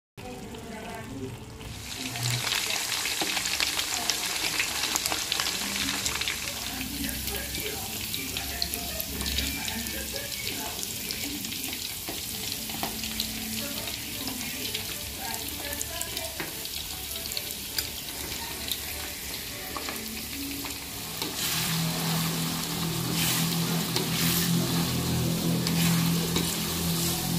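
Hot cooking oil sizzling with fine crackles as food fries in a wok. In the last few seconds, spiced grated coconut is stirred in the oil with a spatula, giving sharp scraping clicks, and a low steady hum joins in.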